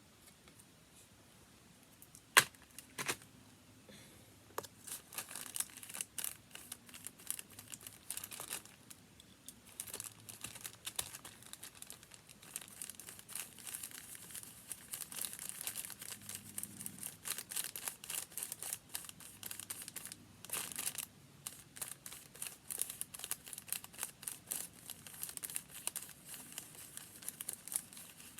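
A sharp click a couple of seconds in, then paper being handled: crinkling and rustling that carries on densely for the rest of the stretch.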